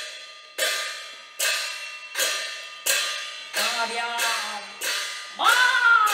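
Cantonese opera percussion: cymbal and gong strikes, each ringing out and fading, about one every three-quarters of a second. From about halfway a voice comes in over them, and near the end it rises into a loud declaimed cry that falls in pitch.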